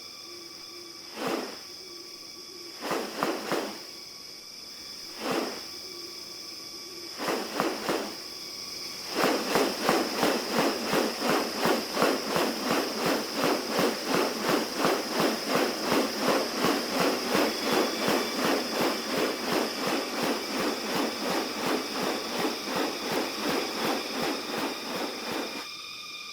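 New Guinea rainforest ambience: a steady high insect whine with several pitches. Over it come a few separate rasping calls, then from about nine seconds in a fast, even series of rasping pulses, about two to three a second, that runs on until near the end.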